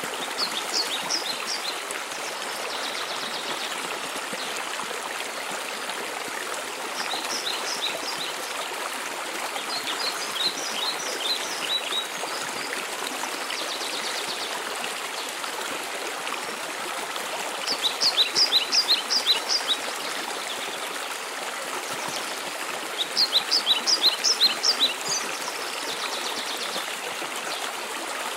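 Waterfall water rushing steadily. Over it a songbird repeats a short phrase of quick, high, down-slurred notes about five times, loudest in the two phrases in the second half.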